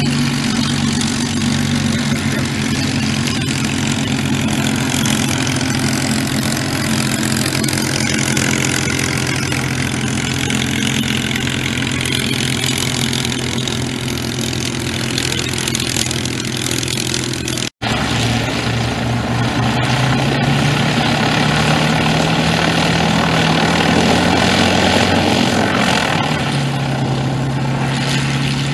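Spitfire fighters' Rolls-Royce Merlin V12 piston engines running at low power on the ground, a steady low drone. About two-thirds of the way through, the note steps up for several seconds, then settles back down near the end.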